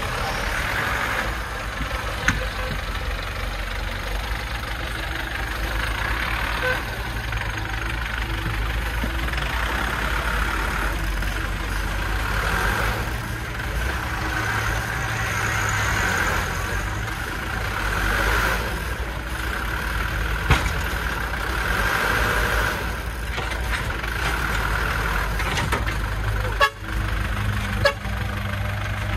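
Engine of a Hoa Mai dump truck running steadily while it tips a load of soil with its bed raised. There are a few sharp knocks, the clearest about twenty seconds in and twice near the end.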